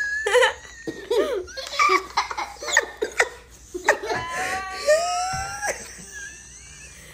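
Laughter in short giggling bursts, including a small child's high-pitched laugh, growing quieter toward the end.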